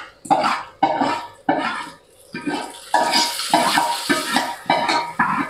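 Steel ladle clanking and scraping against a tilted steel pan, about two knocks a second, as fried tempering (chhunka) is scooped out into a pot of kanji.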